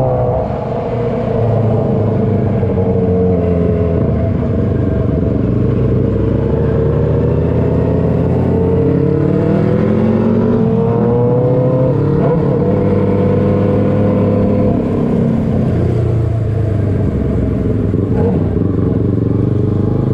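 Motorcycle engine under way, its pitch climbing as it pulls through the revs and dropping back at each gear change or roll-off, several times over.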